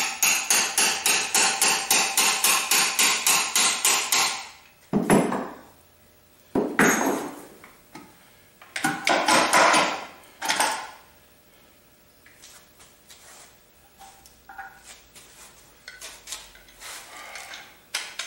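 Fast metal-on-metal hammering on a Quincy 325 compressor being taken apart, about five ringing blows a second for about four seconds, then a few separate heavier knocks and scrapes and light taps. The parts are seized unusually tight.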